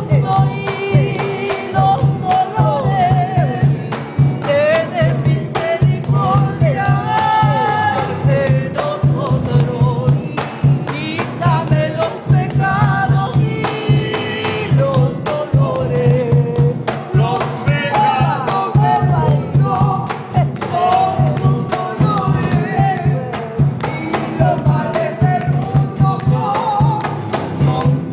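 Afro-Peruvian criollo song: women singing over a classical guitar and a cajón keeping a steady beat, with handclaps.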